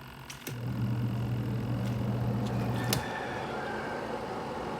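Spin-dryer motor of a Eureka EWM-650D twin-tub washing machine switching on with a couple of clicks and running with a loud electric hum. About three seconds in there is a sharp click and the hum gives way to a steady whirring spin.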